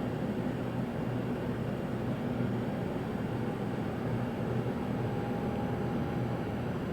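Steady low rumble of jet airliner engines at the airport, holding level without rising or falling.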